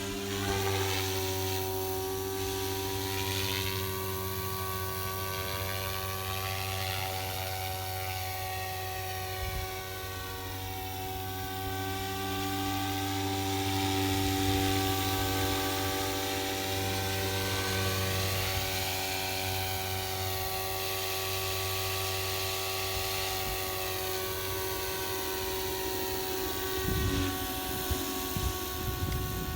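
Electric RC helicopter (Agusta A109 scale model on SAB Goblin 420 mechanics) running at steady speed: a constant whine from the motor and gears with rotor noise, the higher sound slowly sweeping back and forth. A few low bumps near the end.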